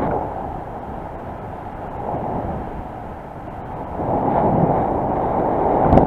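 Wind rushing and buffeting over the microphone of a paraglider pilot's action camera in flight, getting louder about four seconds in.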